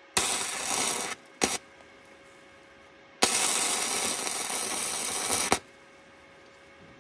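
Wire-feed welder arc crackling in three bursts: a weld of about a second, a brief tack, then a longer bead of about two and a half seconds on the steel frame of a Honda ATV.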